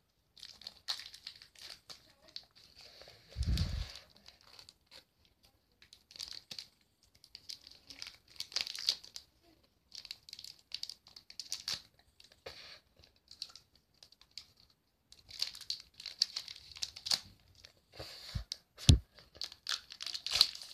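Foil Pokémon card booster pack being crinkled and torn open by hand, in stop-start bursts of crinkling that grow busier near the end. A dull thump about three and a half seconds in and two short knocks near the end come from handling.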